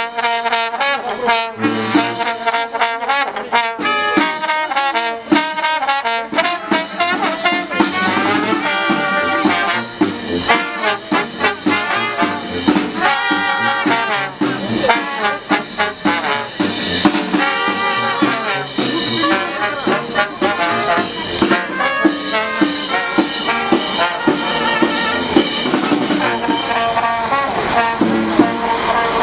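Small brass band of trumpets, trombone and tuba with a side drum, playing a tune in a steady rhythm.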